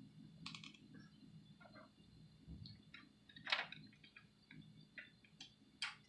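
Faint, scattered small clicks and taps from handling a makeup brush, with the loudest about halfway through, over a low steady hum.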